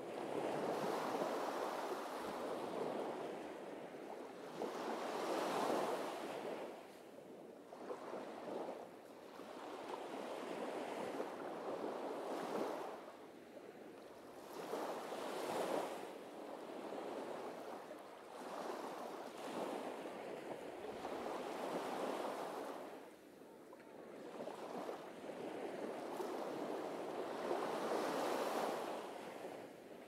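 Sea waves breaking and washing up a sandy beach. The surf swells and eases every few seconds.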